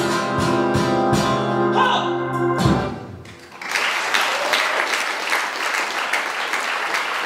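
Male singer with guitar ending a song on a long held note and a final strum, then a room full of people applauding from about three and a half seconds in.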